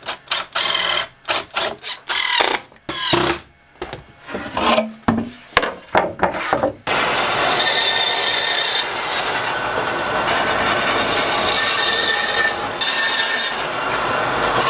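Cordless drill run in a series of short bursts, each spinning up and then winding down, countersinking and pre-drilling screw holes in a plywood board. After about seven seconds it gives way to the steady running noise of a band saw.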